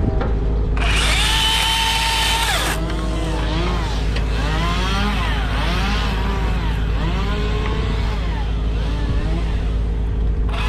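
Chainsaw revved to full throttle for about two seconds, then blipped up and down in pitch about once a second, and opened up to full throttle again at the end. A steady lower engine drone runs underneath.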